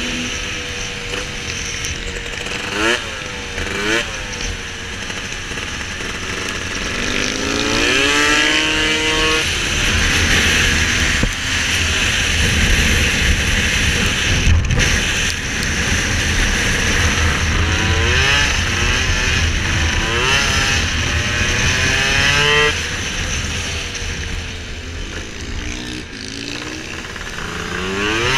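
Piaggio SKR two-stroke racing scooter engine revving hard, its pitch repeatedly climbing as it accelerates and dropping away as it backs off.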